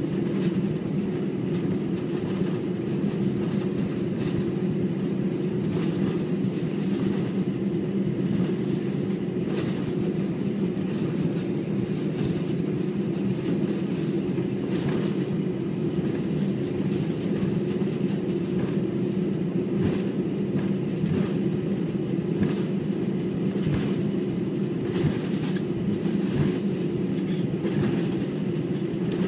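Airbus A320 heard from inside the cabin while taxiing. The engines give a steady, even drone, and the wheels rolling over the taxiway add irregular soft thumps.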